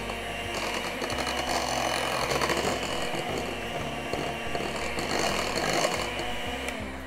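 Electric hand mixer running with its beaters in cake batter in a ceramic bowl: a steady mechanical whir that grows louder about a second in and cuts off at the end.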